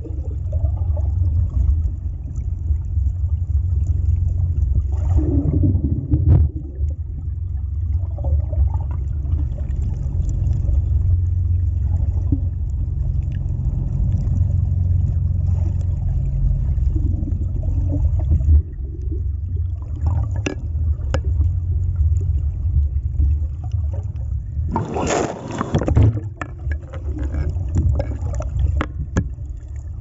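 Muffled low rumble of water heard through a camera held underwater, with a brief louder rush of noise near the end.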